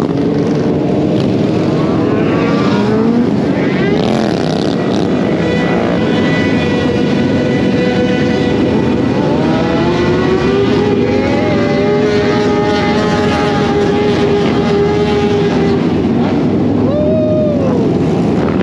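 Motorcycle engines running and revving, more than one at a time, their pitch rising and falling throughout, with a quick rev up and back down near the end.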